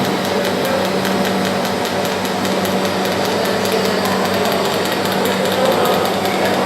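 Orbital TIG welding equipment running steadily: an even hiss with a constant low hum and faint fine crackle.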